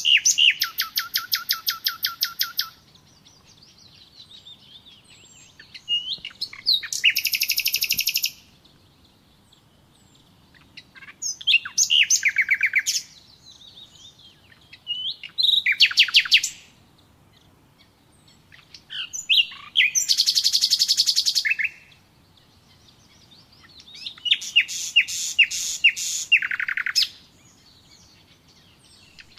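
A songbird singing loud, fast trilled phrases of rapidly repeated high notes, six phrases of about two to three seconds each, with short pauses between them. Fainter chirps sound in the gaps.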